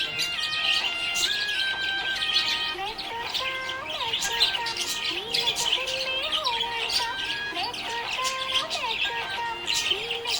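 Budgerigars chirping rapidly and continuously, with a background music melody of stepped notes.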